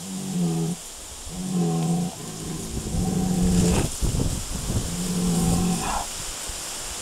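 Tauros cattle (back-bred aurochs) lowing: four short, low moos, each under a second, about a second apart.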